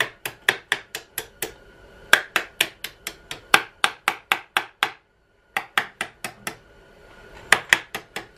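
Small hammer tapping a trigger-group pin into the receiver of a Franchi 48 AL shotgun: quick light metal-on-metal taps, about four a second, in four runs with short pauses between, each with a faint ring.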